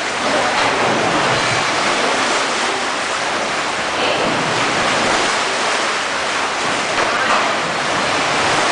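Water rushing and splashing in an indoor rowing tank as a row of rowers pull their oar blades through it, a loud, steady wash.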